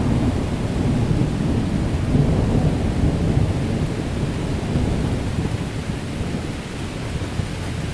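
Low rolling thunder rumbling continuously over steady rain in a city storm, easing a little near the end.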